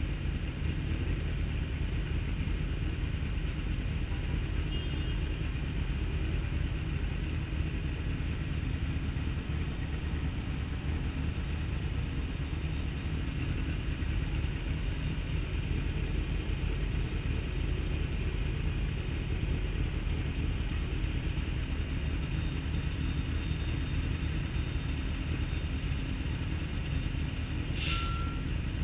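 Motorcycle engines idling steadily at a standstill, an even low rumble, with city traffic around. A short high squeal sounds near the end.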